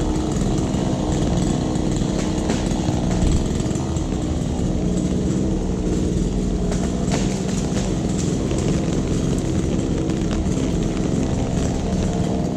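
An engine running steadily at a constant speed, its pitch neither rising nor falling.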